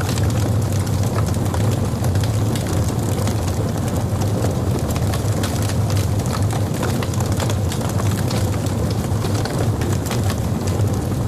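Logs burning in a fireplace: a steady low rumble of the fire with frequent sharp crackles and pops throughout.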